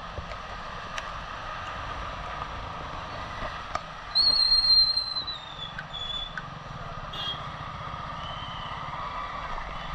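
Motorcycle running at low speed on a wet road, with engine, tyre and wind noise on a helmet-mounted microphone. About four seconds in a loud high squeal sounds for about a second, sliding slightly down in pitch.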